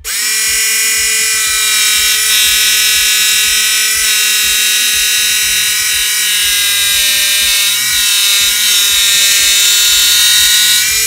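BladeRunner tabletop saw, its upward-pointing jigsaw-type blade driven by a motor, starting up and then running steadily as it cuts a thin aluminium plate. The pitch rises over the first moment, then holds a steady whine with slight wavers as the plate is fed into the blade.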